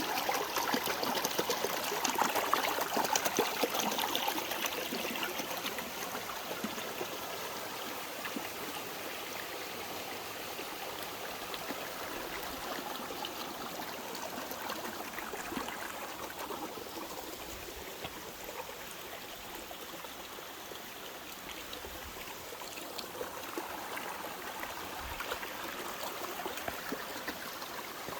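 A small stream running, a steady rush and trickle of water, louder over the first few seconds and then even.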